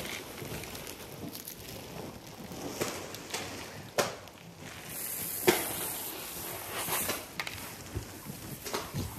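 Dry straw mixed with dairy feed rustling and crackling, with scattered crunches and sharp snaps; the loudest snaps come about four and five and a half seconds in.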